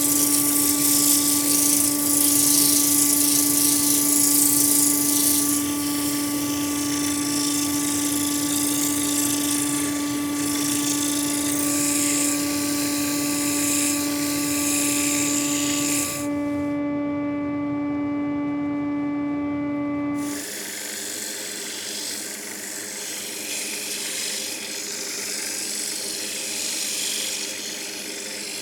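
Wood lathe motor running with a steady hum while sandpaper hisses against the spinning wooden bowl. The hiss lifts off for a moment past the middle, and about two-thirds in the hum stops, leaving a softer scraping hiss.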